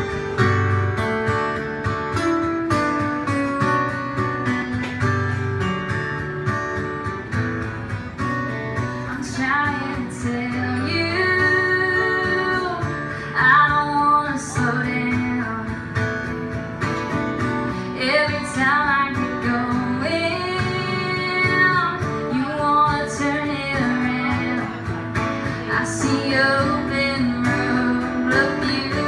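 Two acoustic guitars strumming and picking chords in a slow acoustic song, with a singing voice coming in about nine seconds in and carrying phrases over the guitars.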